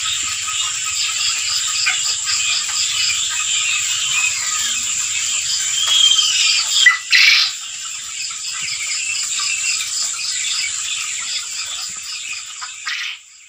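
Many caged young quail chirping and cheeping together in a dense, continuous chorus of high calls, with a steady high-pitched whine behind them. A short, loud, noisy burst cuts across it about seven seconds in.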